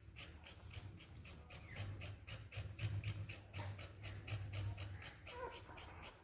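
A puppy panting quickly, about five to six breaths a second, over a low rumble.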